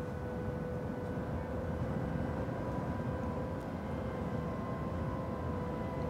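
A steady low rumble, with faint held tones above it.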